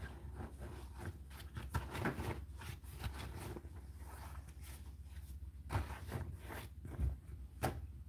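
Clothes rustling and brushing against the tumble dryer drum as they are pushed in by hand, in irregular swishes with a few sharper ones near the end, over a low steady hum.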